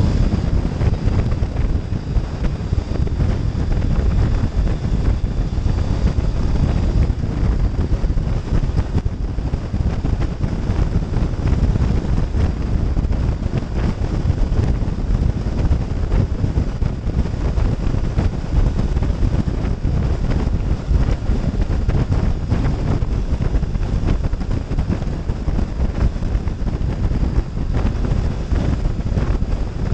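Wind buffeting the microphone of a Triumph Thruxton 900 motorcycle cruising at road speed, with the steady running of its parallel-twin engine underneath.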